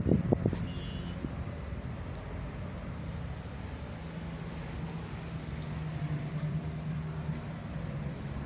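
A few deep bass thumps in the first half second, then a steady low engine-like drone that grows slightly stronger around the middle.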